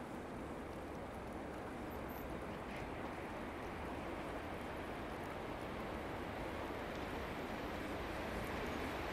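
Faint, steady rumble of an approaching freight train, a locomotive with a rake of coal wagons, growing slowly louder.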